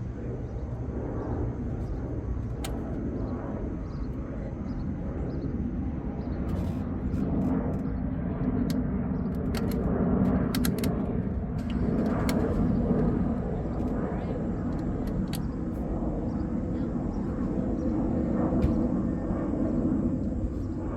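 Steady low outdoor rumble, with scattered light clicks and taps in the middle stretch from spark plug wires and tools being handled on the engine.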